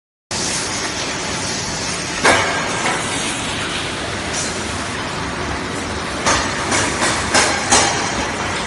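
Paper bag making machine running, a steady mechanical clatter with sharp clacks about two seconds in and several more in quick succession near the end.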